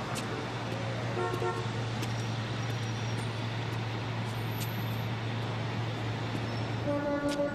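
City street traffic noise with a car horn tooting twice: a short toot about a second in and another near the end, over a low steady hum that stops just before the second toot.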